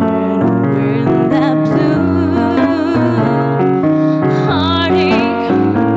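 A woman singing a slow Christmas song into a microphone, accompanied by piano chords on a stage keyboard.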